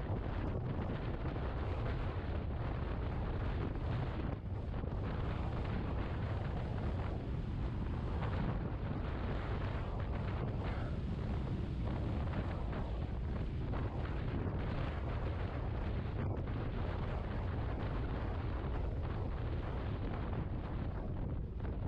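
Wind buffeting the microphone of a scooter riding at road speed: a steady, even low roar that masks any engine note.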